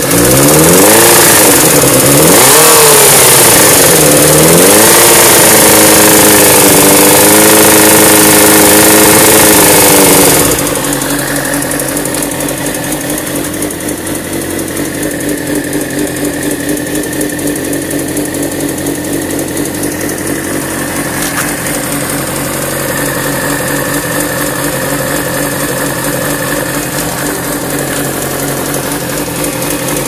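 2002 Suzuki GSX-R 750's inline-four engine revved up and down twice, held at raised revs, then dropped back to a steady idle about ten seconds in. It is running warm with the ticking noise that appears once warm, which the owner suspects is the cam chain tensioner or possibly a spun bearing.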